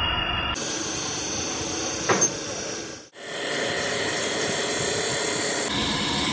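Grinding wheels grinding a steel kingpin under coolant spray: a steady hissing whine, with a brief louder, sharper burst about two seconds in and a sudden break just after three seconds.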